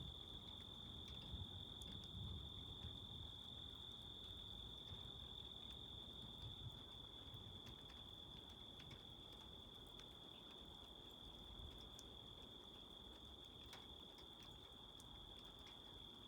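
Crickets calling in a steady, unbroken high chorus. A faint low rumble eases over the first few seconds, with scattered faint ticks.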